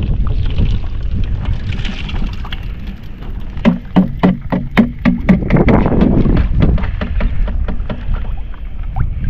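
Wind buffeting the microphone, with a run of quick knocks, about five a second, for roughly two seconds midway. These come from a clear plastic whitebait scoop being rapped against the rim of a plastic bucket to shake the catch out.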